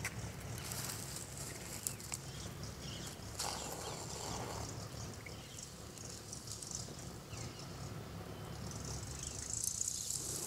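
Faint outdoor ambience: a low steady hum with scattered light clicks and brief rustles.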